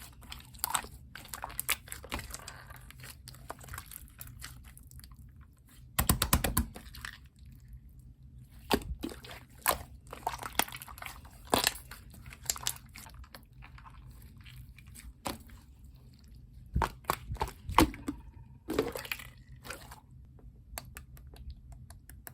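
Clear blue slime being squished and pressed by hand, giving irregular sticky pops and clicks, with a quick run of crackling pops about six seconds in.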